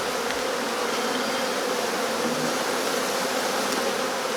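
A swarm of honeybees buzzing in a steady hum as the bees fly around.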